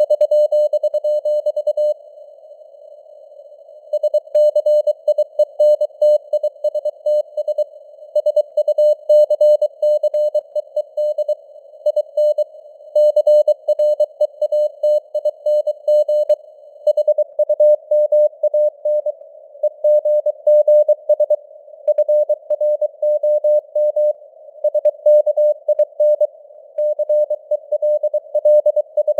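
Morse code (CW) sent at 23 words per minute: a single steady beep keyed on and off in dots and dashes inside a narrow band of simulated radio hiss, with the signal strength fading up and down (QSB). There is a pause of about two seconds near the start.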